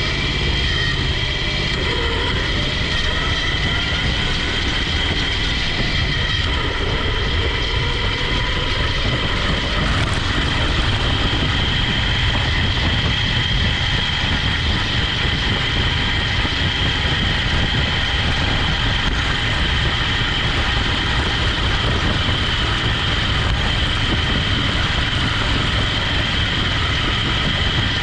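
The 21-horsepower small engine of a motorized couch runs steadily as it drives across rough ground, with a steady high whine over the engine's drone.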